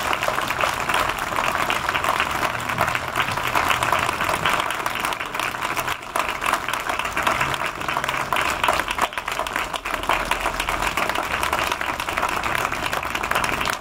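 Crowd applauding: many hands clapping in a steady, unbroken wash of applause after a speech ends.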